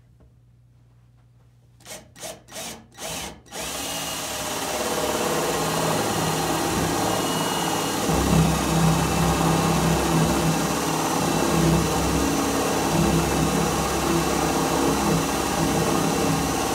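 Cordless drill with a 3/4-inch spade bit boring into a wooden door. Four short trigger blips come about two seconds in, then the drill runs steadily. It grows louder and lower from about eight seconds in as the bit cuts into the wood.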